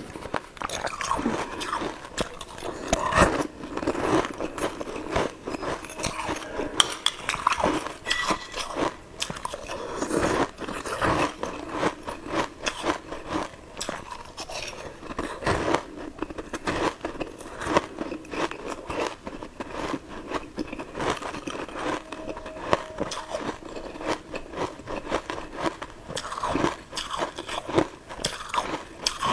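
Frozen coloured ice balls being bitten and crunched, then chewed, close to a clip-on microphone: irregular crisp cracks and crunches throughout.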